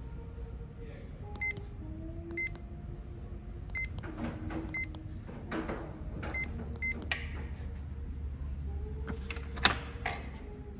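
Electronic door keypad beeping as its code buttons are pressed: several short, high single beeps at uneven intervals. Near the end come two sharp metallic clicks, the loudest sounds, from the door's lock and latch.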